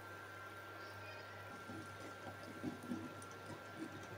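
Faint bubbling and gurgling of boiling water in a non-stick pan as rice flour is poured in, with soft irregular pops from about a second and a half in, over a steady faint high hum.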